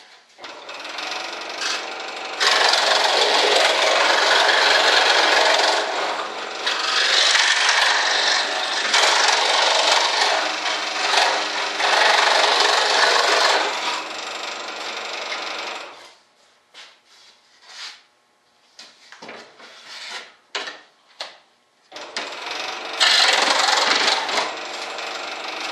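A saw cutting through a board in long passes of a few seconds each, with brief pauses between them. Short knocks and scrapes follow as the piece is handled, then another cut starts near the end. The builder is trimming a bulkhead piece straighter.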